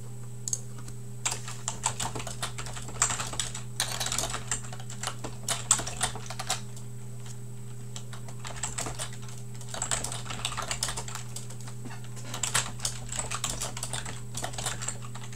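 Typing on a computer keyboard in quick runs of keystrokes with short pauses between them, over a steady low electrical hum.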